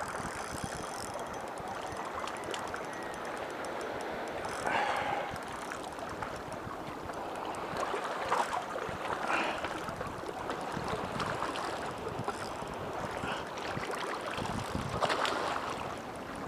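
Small waves washing at the shoreline: a steady wash with a few brief louder splashes, the loudest about five and fifteen seconds in.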